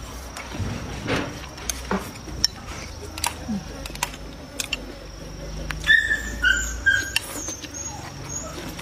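Eating sounds: chopsticks clicking on a plate and chewing, with scattered short taps. About six to seven seconds in, an animal gives three short high-pitched calls, the loudest sounds here.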